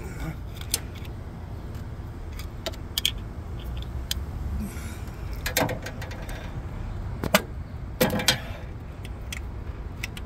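Scattered metallic clicks and clinks of hand tools against engine parts, with a few louder knocks about five and a half, seven and eight seconds in.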